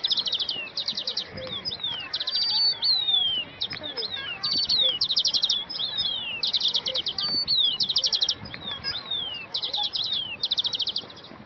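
Small birds chirping and singing without pause, high-pitched: rapid trills of quickly repeated notes alternate with short down-slurred whistles.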